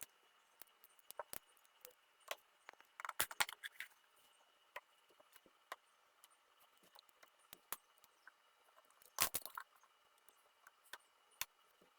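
Irregular small plastic clicks and rattles of LEGO parts being handled, with two short bursts of clatter about three seconds in and about nine seconds in.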